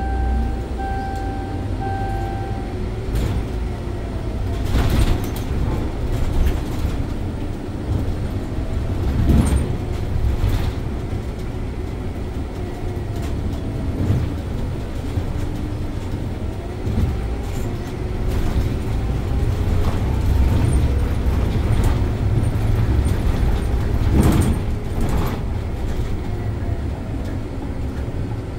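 Scania OmniLink city bus heard from the driver's seat while driving: a steady low engine and road rumble whose engine note slowly rises and falls as the bus speeds up and eases off, with a few sharp knocks and rattles from the cabin. A steady tone sounds for the first three seconds or so.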